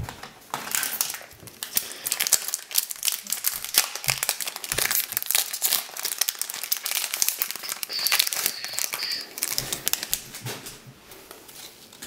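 Foil wrapper of a Japanese Pokémon booster pack crinkling and crackling as it is handled and opened, a dense run of crinkles that dies down near the end.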